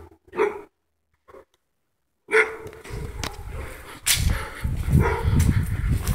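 A dog barking in short bursts, with an uneven low rumble in the second half.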